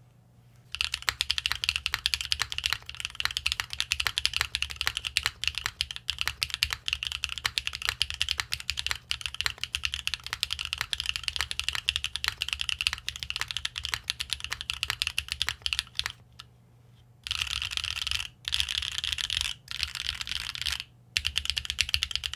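Typing on a Qwertykeys Neo65 mechanical keyboard in gasket mount, with long-pole linear Neo switches (PC top, nylon bottom) and GMK keycaps: a steady run of keystroke clicks, soft and muted. The typing stops for about a second after about sixteen seconds, then comes back in three denser runs with short pauses between them.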